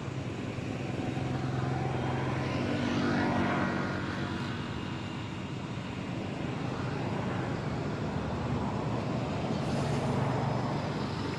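A steady engine drone that swells twice, about three seconds in and again near the end, as a motor passes.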